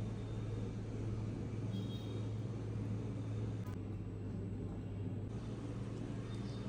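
A steady low hum, with a faint high whine about two seconds in and again near the end, and a single small click.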